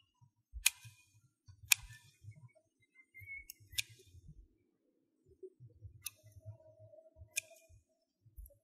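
Kitchen scissors snipping through grilled octopus tentacles: five sharp snips at uneven intervals.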